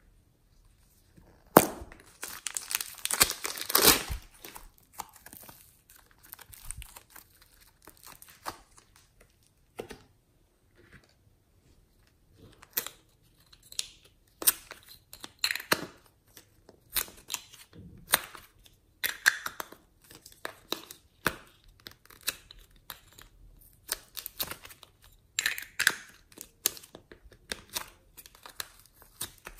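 Crinkling and crackling of a plastic piping bag and thin clear plastic containers handled as soft clay is squeezed and pulled out of them. There is a dense stretch of crackling about two seconds in, then scattered crackles and clicks.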